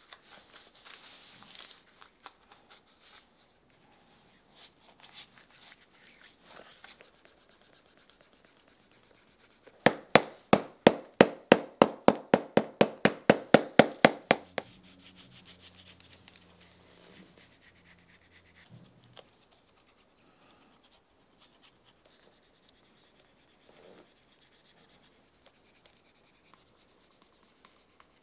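A brush stroking across a leather shoe sole, then a fast, even run of about twenty sharp hammer taps, about five a second, on the sole leather. Faint rubbing and a few light taps follow.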